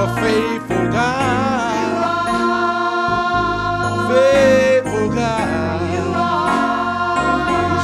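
Gospel praise music: a wavering vocal run sung over steady held keyboard chords and bass.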